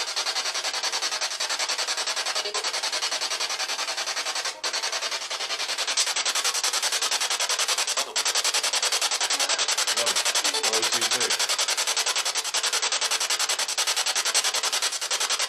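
Spirit box radio sweeping through stations: steady, rapidly chopped static, with a brief voice-like fragment about ten seconds in.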